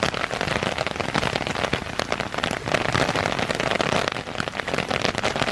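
Heavy rain starting to pour: a steady hiss of rain with dense, sharp taps of drops striking close by.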